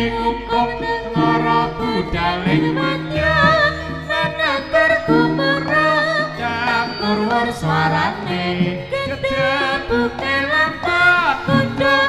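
Javanese jaranan music played live: a wavering, ornamented melody line, likely sung, over gamelan accompaniment with held pitched tones.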